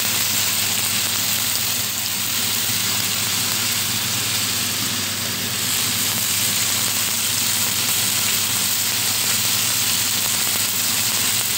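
Frog meat and bell peppers sizzling in oil in a steel wok: a steady frying hiss, with a low steady hum underneath.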